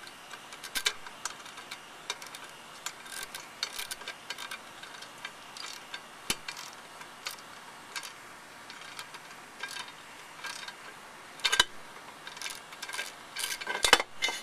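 Socket ratchet clicking in short, irregular runs as the bolts holding a lawnmower's muffler cover are turned out, with a few louder metal knocks near the end as the cover comes off.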